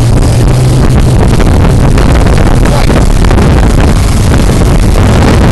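Suzuki outboard motor running at speed, driving the boat through the water, with rushing wind and water loud on the phone's microphone. A steady low hum fades about a second and a half in.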